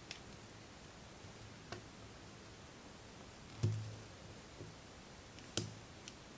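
Small, faint clicks and soft knocks as hands work a metal crochet hook through chunky yarn, about six in all. The two loudest come just past the middle and near the end.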